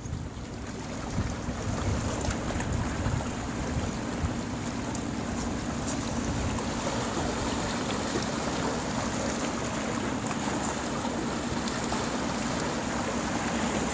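Wind buffeting the microphone over a steady low hum.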